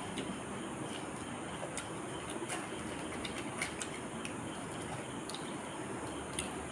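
Crisp fried fuchka (pani puri) shells being cracked open and crunched while eating: scattered sharp clicks at irregular intervals over a steady background hiss.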